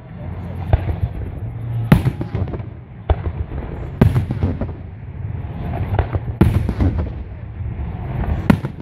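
Aerial firework shells bursting in a display: four loud sharp bangs about two seconds apart, with smaller pops between them, over a steady low rumble.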